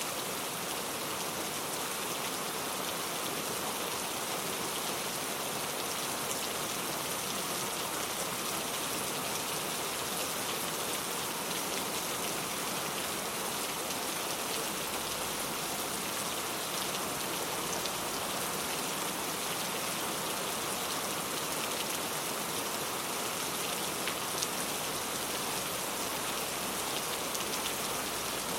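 Heavy rain falling steadily, a dense hiss of countless drops striking a surface.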